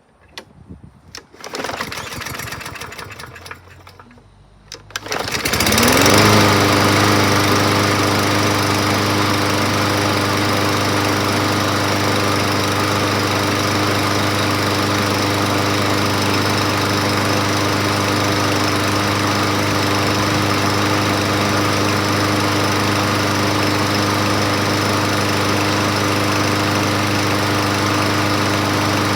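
Troy-Bilt TB110 push mower's Briggs & Stratton engine being pull-started: a few seconds of rattling from the recoil pull, then about five seconds in the engine catches, revs up and settles into a steady, even run. It runs without enough vibration to shake off a small object resting on it, a sign that the bent crankshaft has been straightened successfully.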